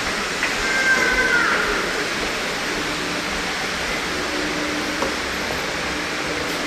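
Steady rushing background noise with a low, steady hum that comes in about three seconds in.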